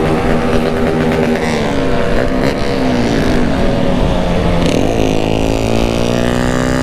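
Motorcycle engine running under way at highway cruising speed in third gear, among other motorcycles, with wind rushing over the microphone. The engine note wavers in the middle and then climbs steadily from about five seconds in as the revs rise.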